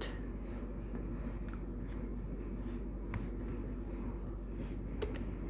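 Quiet room noise with a steady low electrical hum and a few soft, short clicks from a laptop's keys or trackpad as code is copied.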